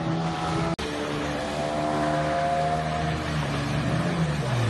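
Calon Gloria outboard motor running at speed on an inflatable boat, a steady engine note over splashing water. The sound cuts out for an instant about a second in. Near the end the engine pitch dips and comes back up.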